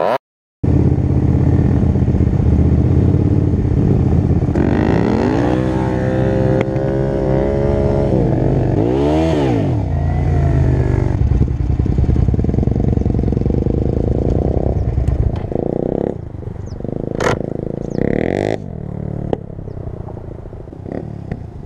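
Motorcycle engine running under load while riding off-road across grass. The revs climb, then rise and fall sharply in one quick blip. Later the engine sound drops away and two sharp knocks follow near the end.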